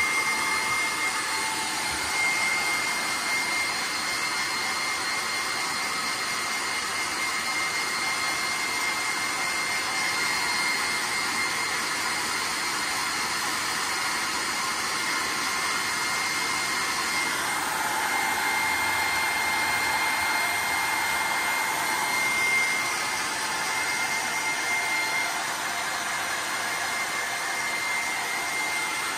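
Handheld hair dryer running steadily, blowing on a wet dog's coat, with a thin steady whine over the rush of air. Its sound shifts slightly about two-thirds of the way through.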